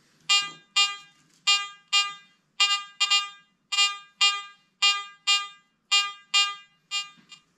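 Garrett AT Gold metal detector beeping as a small 24-karat gold pacifier charm is swept back and forth over its coil: the detector is signalling the gold. About fourteen short beeps of one fixed pitch, mostly in pairs, one pair for each swing.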